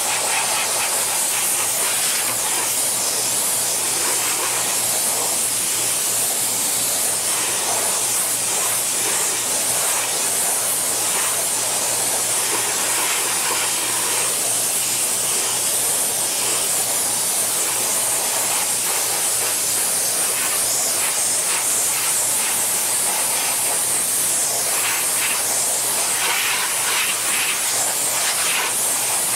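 Compressed air blowing steadily from an air blow gun over freshly vacuum-formed Kydex to cool it: a continuous loud hiss with a steady low hum underneath.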